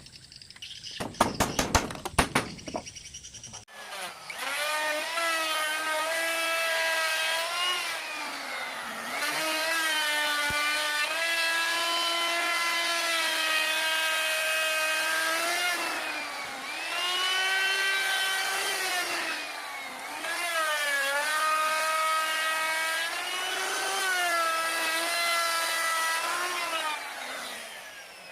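A few seconds of sharp knocks, then an old-style table saw whines as it runs and cuts wood. Its pitch sags and recovers several times as the blade takes and sheds the load.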